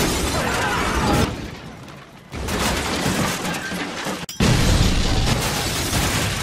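Film action sound of a car under attack: loud crashing and shattering glass with flying debris. After a brief lull it surges back suddenly twice, the second time with the blast of an explosion.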